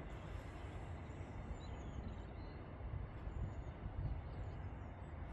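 Quiet rural outdoor background: a low, uneven rumble and hiss, with a few faint high bird chirps about one and a half to two and a half seconds in.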